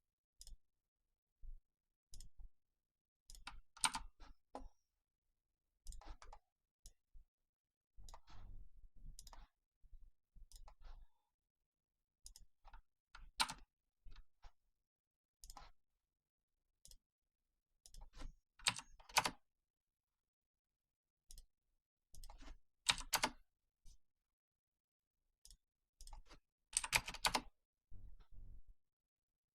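Computer mouse clicks and keyboard keystrokes, coming singly and in short irregular flurries with silent gaps between.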